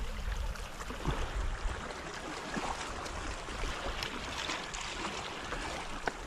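Small sea waves lapping and sloshing against a rocky shoreline, a steady wash of water with a few faint splashes.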